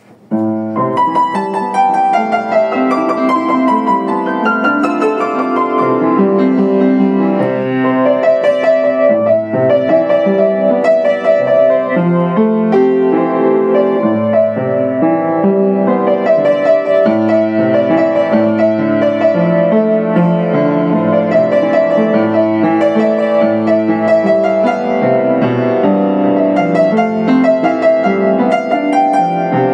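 Yamaha U1J upright piano played solo, a melody of separate notes over lower sustained notes, starting a fraction of a second in.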